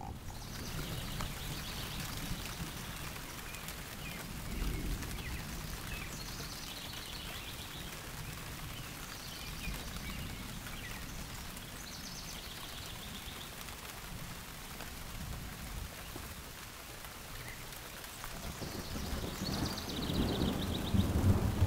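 Steady rain falling, with a bird singing short trills several times over it. A low rumble grows louder near the end.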